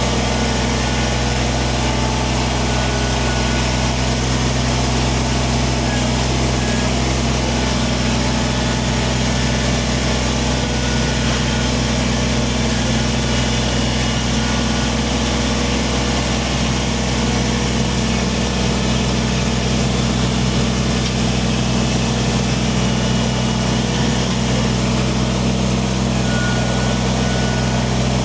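Kubota compact tractor's diesel engine running at a steady speed, with no change in pitch or level throughout.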